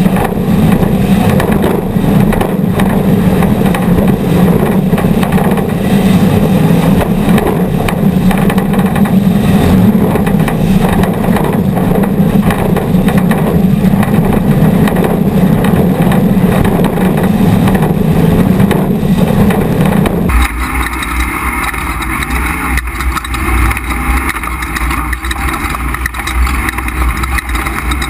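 Off-road race trucks' engines running hard at speed, loud and steady. About two-thirds of the way through the sound cuts abruptly to a different engine sound with a deeper rumble.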